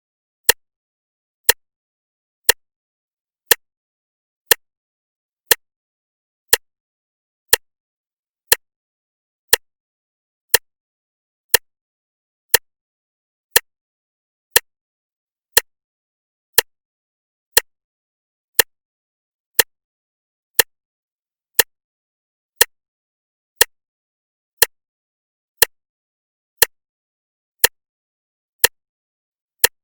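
Clock ticking steadily, one sharp tick each second with silence between.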